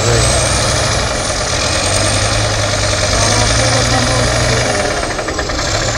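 Heavy truck diesel engines running hard under load as two off-road trucks pull against each other in deep mud: a steady low drone with a thin high whistle that climbs in the first second, holds, and falls away near the end.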